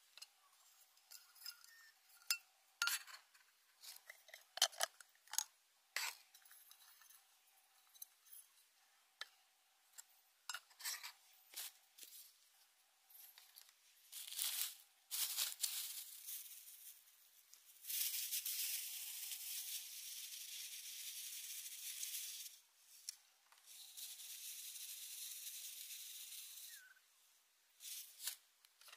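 Small clicks and knocks of camp cooking gear and food being handled and set down on a folding aluminium table. About two thirds of the way in come two steady rustling stretches of several seconds each.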